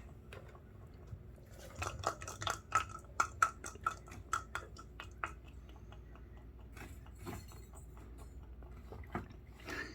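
Small hard clicks and clinks, about three a second for a few seconds and then only now and then, as a cat paws at a treat container to get the last treat out.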